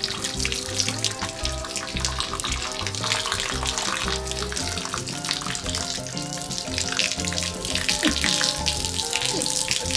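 Background music with a pulsing bass, over the steady splash of hot-spring water pouring down from an utase-yu falling-water bath.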